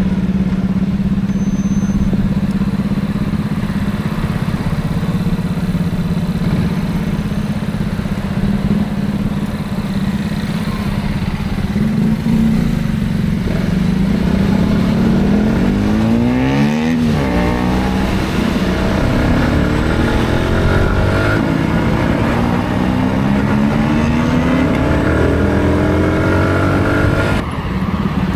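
Motorcycle engine running under wind noise on a helmet-mounted microphone, holding a steady note at first. About halfway the engine note dips and climbs again, then rises in several sweeps as the bike accelerates through the gears.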